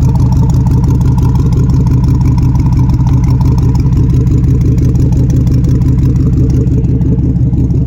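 Chevrolet Tahoe's 5.3-litre Vortec V8 idling steadily, leaking exhaust at the passenger-side exhaust manifold.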